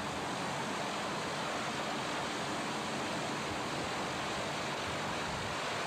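Boeing B-17's four Wright R-1820 Cyclone radial engines being run up to higher power to pull the bomber out of mud, heard as a steady, even noise with no distinct beat through an old VHS camcorder microphone.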